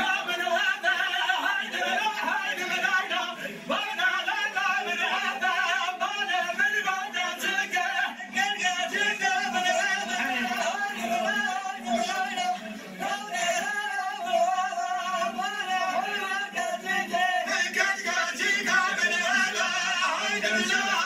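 Kurdish halay folk music: a man singing an ornamented, wavering melody that carries on without a break, for line dancing.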